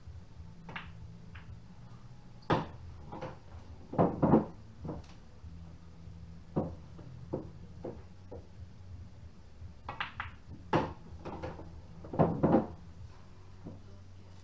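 Pool balls clacking as shots are played: the cue strikes the cue ball and the balls knock together, in several clusters of sharp clicks over a low steady hum.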